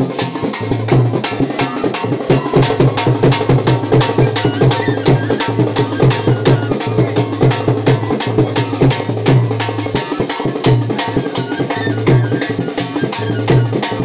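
Dance music with a fast, even drum beat over a deep bass line played in short repeated notes.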